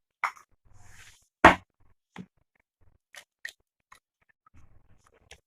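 Eggs being cracked on a bowl: a series of sharp cracks and small shell clicks, the loudest a hard knock about a second and a half in.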